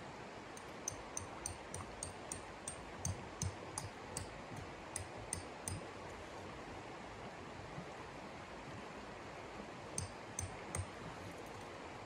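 Steady noisy hiss with a run of short, crisp taps, about three a second, for some five seconds; three more taps come near the end.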